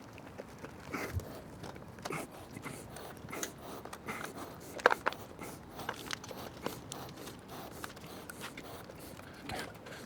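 Hands working a motorcycle's metal ABS brake line out through the frame: scattered light clicks, taps and scrapes, the sharpest a click about five seconds in.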